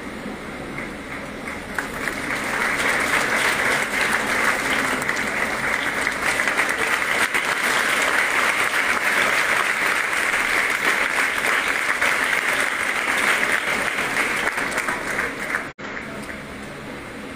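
Audience applauding, the clapping swelling about two seconds in and dying away near the end.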